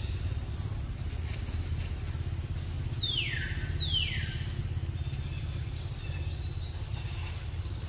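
A steady low rumble runs throughout. Over it, a bird gives two clear falling whistles a little under a second apart, with a few faint chirps later.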